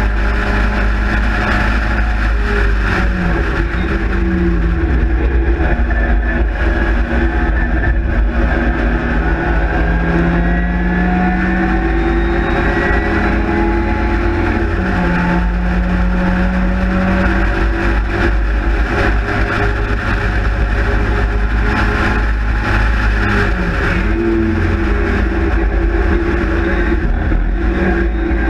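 Austin-Healey Sprite / MG Midget ('Spridget') race car's engine at racing speed, heard from an open cockpit with wind buffeting the microphone. The engine note climbs and drops several times as the driver changes gear and lifts for corners.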